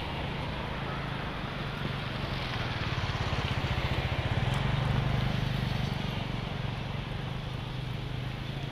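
A vehicle engine running with a steady low hum that swells and pulses for a few seconds in the middle, over a constant hiss of outdoor ambience.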